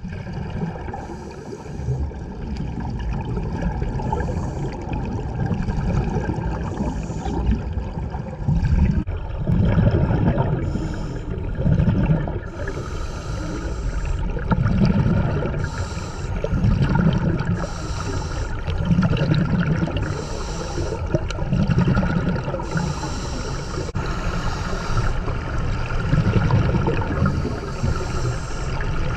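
Scuba breathing recorded underwater: exhaled bubbles from the regulator rumble in surges every couple of seconds, with hissing breath bursts between them.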